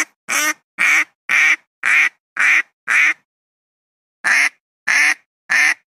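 Philippine duck quacking: a run of about seven loud, evenly spaced quacks at roughly two a second, a pause of over a second, then three more. It is a recorded duck call used by hunters to lure wild ducks down.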